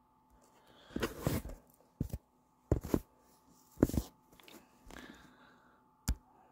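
A series of short knocks and rustles, about one a second, over a faint steady electrical hum.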